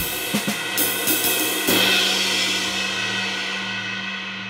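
Ride cymbal fitted with three rivets, struck with a drumstick: a few quick strokes, then a last stroke about a second and a half in that rings on as a long, slowly fading rivet sizzle. A low steady hum runs underneath.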